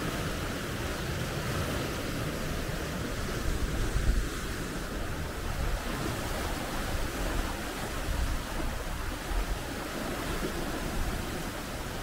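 Sea surf breaking and swirling over volcanic rocks: a steady rushing wash with low rumbling surges now and then, the loudest about four seconds in.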